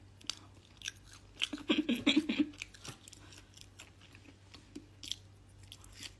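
A person chewing and crunching food close to the microphone: a run of small, crackly mouth clicks, with a louder muffled burst about two seconds in.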